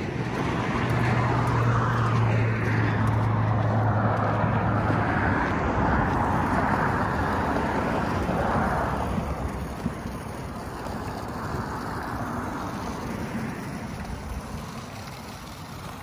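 Road traffic passing on a busy street: car tyre and engine noise swelling and fading as vehicles go by, with a steady low engine hum for the first few seconds, then dying down in the second half.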